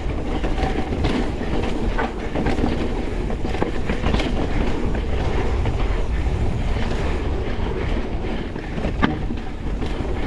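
Pivot Switchblade full-suspension mountain bike descending a rooty trail at speed: a continuous rattle and clatter of tyres, chain and suspension over the roots, with a low rumble underneath and short knocks throughout, the sharpest near the end.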